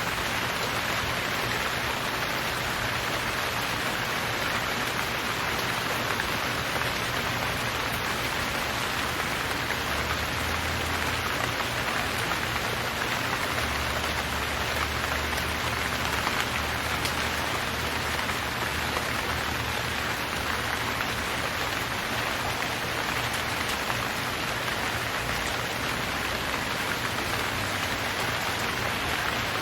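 Steady rain falling, an even hiss of many drops on leaves and ground.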